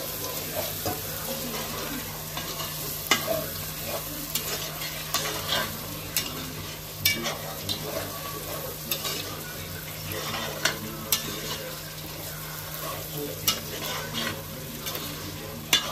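Marinated prawns and green masala sizzling in an enamelled pot while a metal spatula stirs them, scraping and clinking against the pot at irregular moments, roughly once a second, over a steady frying hiss.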